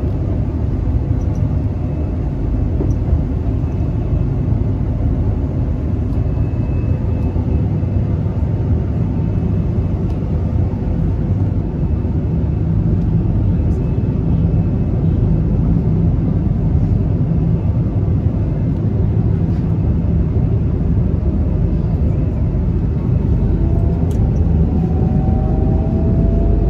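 Interior of a KTM Class 83 Hyundai Precision electric multiple unit running along the line: a steady, loud, low rumble from the wheels and running gear. Near the end a whine rises in pitch.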